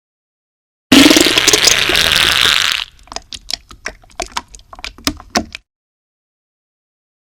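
Fart sound effect: a loud, noisy fart starting about a second in and lasting about two seconds, then breaking into a sputtering run of small pops for about three more seconds before cutting off suddenly.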